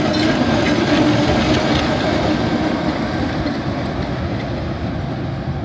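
Small narrow-gauge diesel locomotive running light past close by and pulling away along the track: a steady engine drone with a low hum, slowly getting quieter as it recedes.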